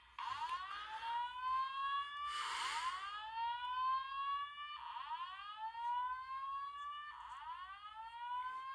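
Fire alarm speaker sounding the slow whoop alert tone, four rising sweeps each a little over two seconds long. It is the lead-in to a Simplex female voice evacuation message.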